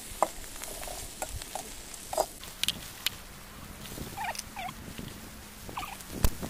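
A knife scraping and clicking against a steel wok as fried noodles are stirred, in scattered sharp strokes. A few short chirping calls sound in the background in the second half.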